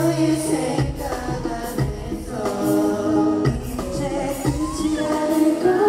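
Male pop vocals sung live into a handheld microphone over a backing track of sustained bass and keyboard-like accompaniment.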